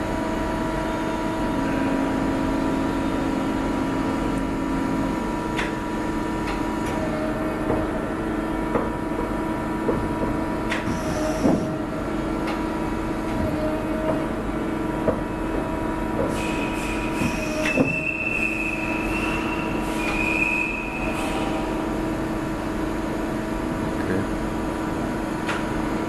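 Boehringer VDF 400 CM CNC lathe running: a steady hum with several steady whining tones, scattered clicks and knocks as the tool turret moves, and a higher squealing whine in two stretches about two-thirds of the way through.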